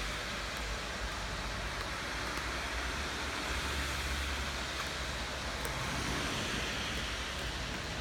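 Steady rain falling, a continuous even hiss with a constant low rumble beneath it and a few faint ticks of drops.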